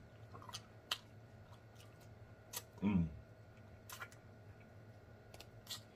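Quiet close-up eating sounds from a fried chicken wing: scattered wet lip smacks and mouth clicks as the meat is pulled and sucked off the bone, with a short hummed 'mm' about three seconds in.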